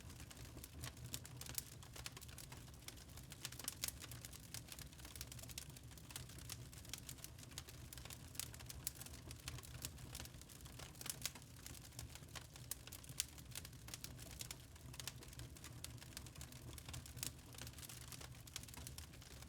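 Wood fire in a fireplace crackling, with frequent irregular small pops and snaps over a low steady rumble of the flames.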